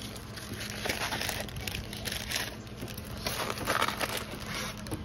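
Clear plastic packaging and a paper sleeve crinkling and rustling as they are handled, in irregular bursts.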